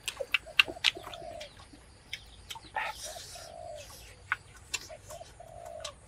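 A dove cooing in a repeated phrase of two short notes followed by a longer one, about every two seconds. There are sharp clicks in the first second and a brief rustle about three seconds in.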